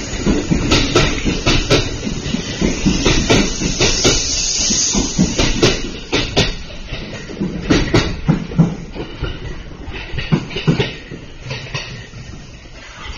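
Kintetsu electric train running past along the platform, its wheels clacking over the rail joints in quick clicks over a steady rumble. The sound grows quieter from about six seconds in as the last cars go by.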